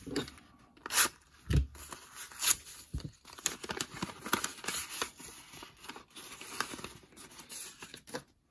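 A white paper mailing envelope being torn open by hand, with several sharp rips in the first few seconds, then lighter paper rustling and crinkling as the contents are pulled out.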